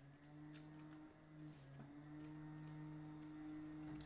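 Quiet eating sounds from people chewing, with small wet mouth clicks. Under them runs a low steady tone that dips in pitch for a moment about a second and a half in.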